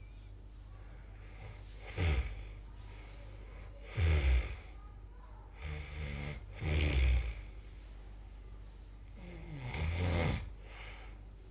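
A sleeping person snoring, one snore about every two to three seconds, five in all, with a quieter steady breath sound between them.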